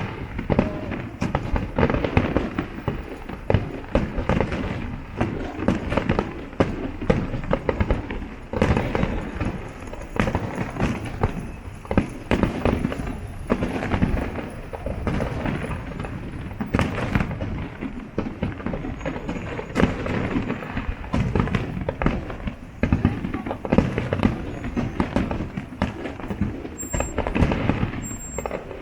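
Fireworks display going off continuously, with many sharp bangs following each other in quick succession.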